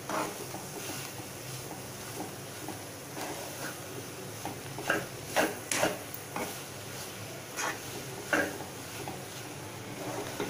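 Spatula stirring and scraping bread cubes and egg masala around a nonstick kadai, with a run of sharp knocks against the pan, the loudest about five to six seconds in and again past eight seconds.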